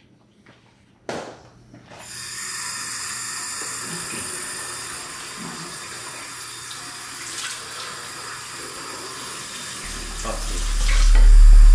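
A click about a second in, then water running steadily from a tap into a sink. A loud low hum comes in near the end.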